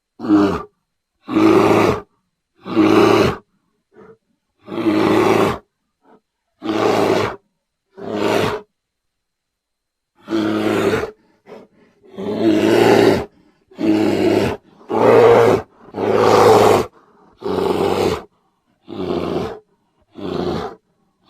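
Bear roaring and growling: a run of about fifteen short roars of around a second each, divided by brief silences.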